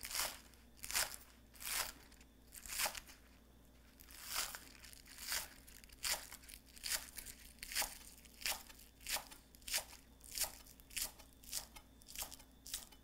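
Large kitchen knife slicing green onions on a cutting board, one short cutting stroke after another, about one to two a second, coming faster in the second half.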